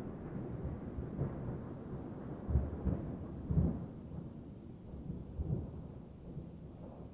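Low, continuous background rumble with a few deeper thuds, slowly fading toward the end.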